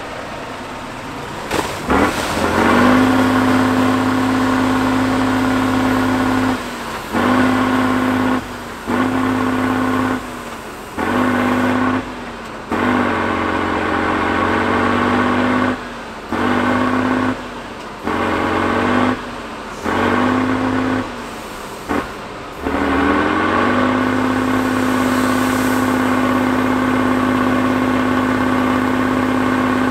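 Tatra 6x6 trial truck's diesel engine revved hard in repeated bursts, dropping back between them, while the truck is stuck nose-down in a mud pit. The revs rise again near the end and are held high and steady.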